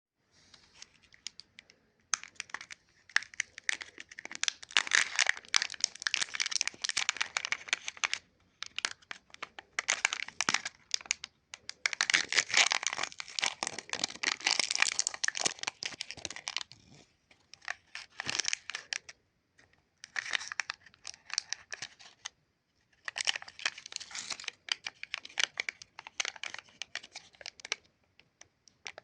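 Plastic lollipop wrappers being crinkled and torn open, in bursts of dense crackling a few seconds long with short pauses between them.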